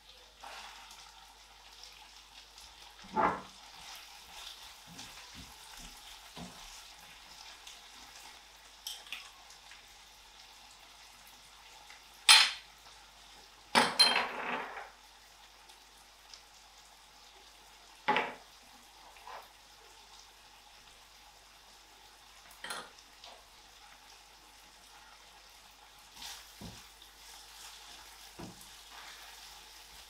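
Food frying in a pan with a faint, steady sizzle, while a utensil knocks and scrapes against the pan a dozen or so times. The loudest knocks come about twelve and fourteen seconds in.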